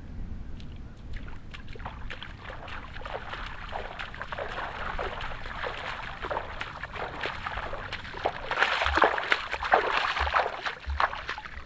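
Shallow seawater splashing and trickling over sand as bare feet wade through it, in a run of small splashes that grows louder about nine seconds in.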